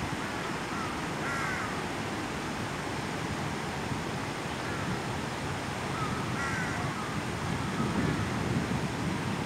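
Steady rush of a fast-flowing river, with short bird calls twice, about a second and a half in and again after six seconds.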